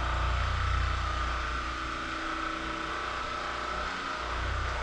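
A small electric motor running steadily with a low hum, dipping briefly about four seconds in.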